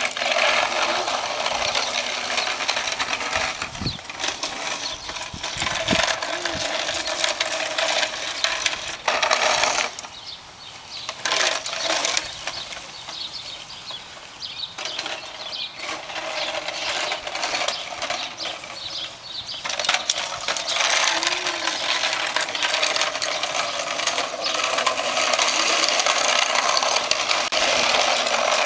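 Toy dump trucks being pushed along by hand, their wheels rattling steadily over the concrete sidewalk. The rattle is louder at the start and again through the last third, and dies down in between.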